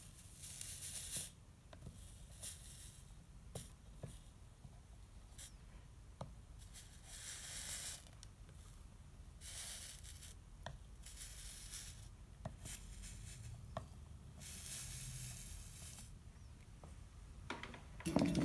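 Soldering iron sizzling on flux in bursts of about a second as solder is run along the copper-foiled seams of stained glass, with light clicks between. A low thump near the end, the loudest sound.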